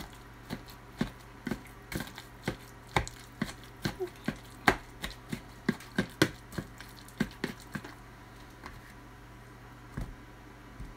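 Plastic meat-separator masher knocking repeatedly against the bottom of a mixing bowl as it chops and mashes hard-boiled eggs, in quick uneven knocks about two to three a second. The knocks thin out about eight seconds in, with one more near the end.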